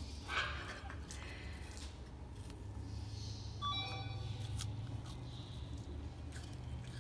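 Red panda chewing a piece of Gala apple: faint wet crunching clicks over a steady low hum, with a short high squeak about halfway through.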